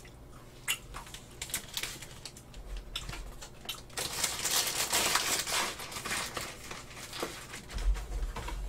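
Crinkling of a printed snack-packaging wrapper as it is handled and crumpled, densest in the middle. Scattered light clicks and a few low knocks of cardboard Pepero boxes being moved come before and after it.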